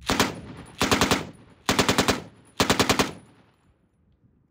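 1941 Johnson light machine gun in .30-06 firing four short bursts of automatic fire, a few shots each, about a second apart. The reports echo away after the last burst.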